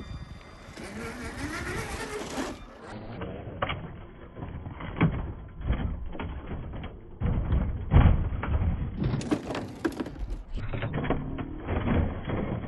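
RC crawler truck driving over rough ground. Its small electric motor whines up in pitch near the start, over irregular knocks, clicks and crunching from the tyres and chassis.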